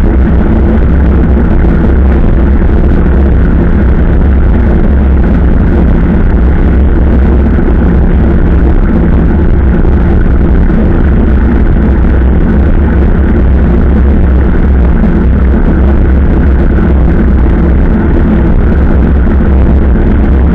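Steady, loud wind rumble on the microphone of a camera riding along on a bicycle, mixed with the hum of tyres rolling on a paved trail.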